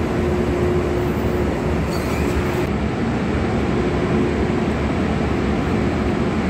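Steady drone of spray-booth ventilation fans, with a constant hum running under an even rush of air.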